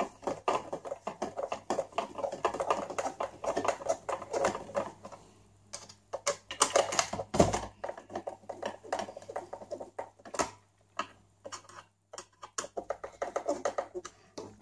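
Small screwdriver working screws back into a plastic flashlight head: runs of light clicks and scrapes of metal on plastic, with one heavier knock about seven seconds in.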